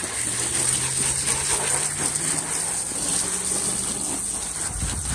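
Water from a low-pressure garden hose spraying and spattering steadily over a car's engine bay while it is rinsed, with a faint low hum underneath.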